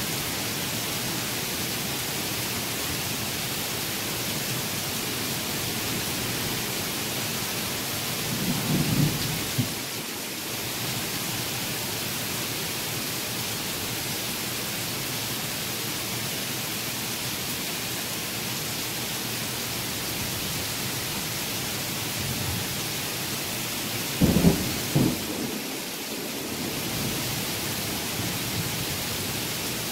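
Heavy rain falling steadily, with two short rumbles of thunder: one about a third of the way in, and a louder one about four-fifths of the way through.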